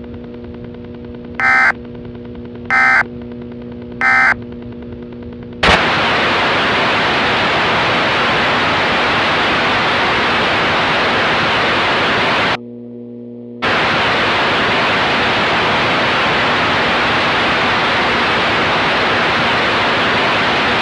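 Three short EAS end-of-message data bursts, the warbling digital tones that close an alert, over a low steady hum. About six seconds in, loud hissing static takes over, like a dead carrier. It drops out for about a second partway through, leaving the hum.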